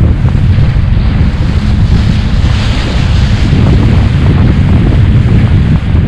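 Strong wind buffeting the microphone, a loud, steady, low rumble with hiss above it.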